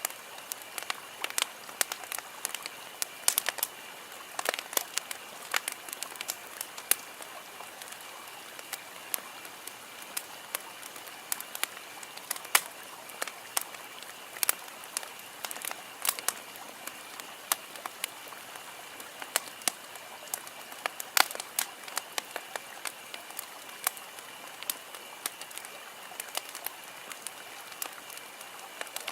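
Campfire crackling: burning wood giving frequent sharp, irregular pops and snaps over a steady hiss.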